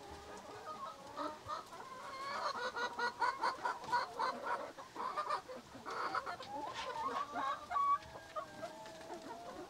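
A flock of brown laying hens clucking as they feed: a continuous run of short, overlapping calls.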